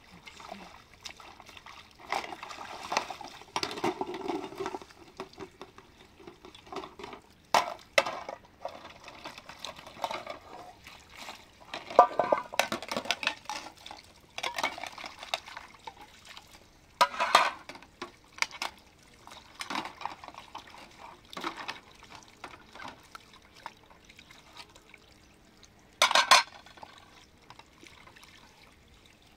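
Metal dishes being washed by hand: water splashing and sloshing as aluminium bowls and pots are scrubbed and rinsed on a metal tray, with several sharp clinks of metal on metal.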